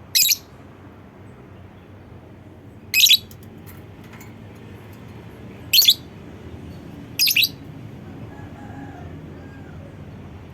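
Lovebird giving four short, shrill calls a few seconds apart, over a faint low hum.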